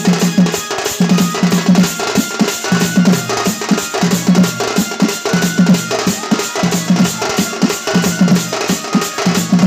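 Dhol, a double-headed barrel drum, played fast in a driving folk dance rhythm, its strokes falling in clusters about once a second. A thin, high held melody line steps between notes over the drumming.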